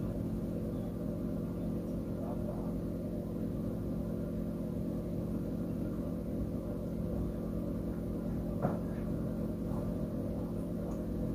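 Steady low hum made of several held low tones, with a single short click about two-thirds of the way through.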